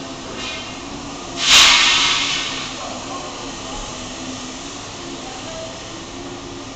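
Building-site background noise with faint distant voices. About one and a half seconds in comes a loud, sudden burst of hiss that fades over about a second.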